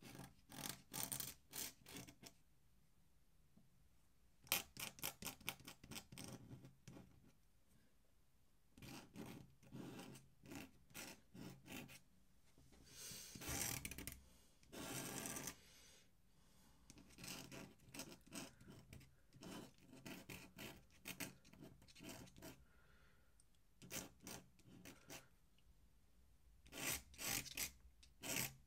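Dip pen nib scratching across paper in quick short strokes, in clusters broken by pauses of a second or two.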